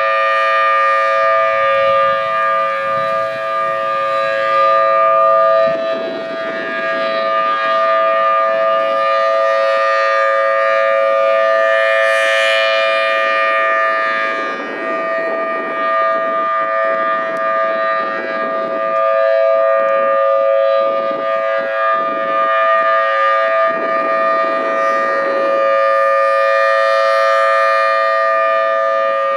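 Federal Signal Thunderbolt 1000T tornado siren sounding at full pitch, a loud steady two-note chord held throughout, with low rumbling swells coming and going beneath it.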